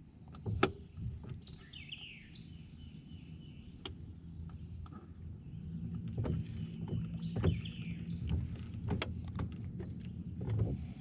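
Small fishing boat on still water: scattered knocks and bumps against the hull, a couple of short falling bird chirps, and a steady high thin whine. From about halfway a low steady hum comes in and stays.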